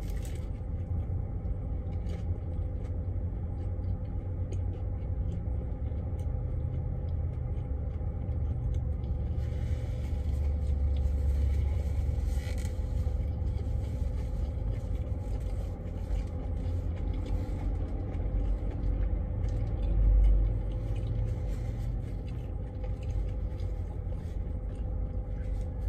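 Steady low rumble of an idling diesel truck engine heard inside a semi-truck's cab, with a steady hum over it, swelling a little around the middle and briefly louder about twenty seconds in. Faint small clicks and rustles of eating come and go.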